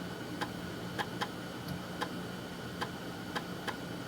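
3.5-inch floppy disk drive reading a disk, its head stepping with sharp, irregularly spaced clicks, about ten in four seconds, over the faint steady hum of the spinning drive motor.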